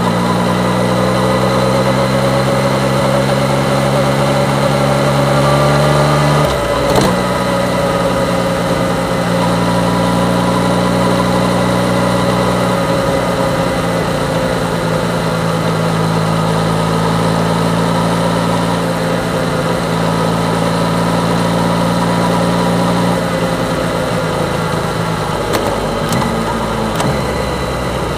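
Yamaha MT-09's three-cylinder engine running steadily while the bike is ridden, its pitch drifting up and down only a little. About a quarter of the way in there is a brief knock and the low engine note changes abruptly.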